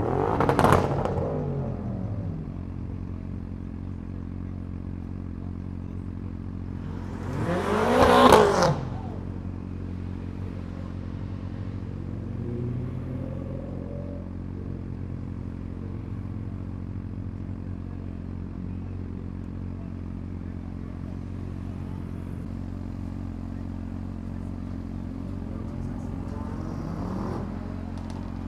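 Motorcycle inline-four engine idling steadily, fitted with an aftermarket SC-Project exhaust. Two loud engine revs swell and fade over it, about a second in and about eight seconds in, the pitch rising and falling with each. A fainter swell comes near the end.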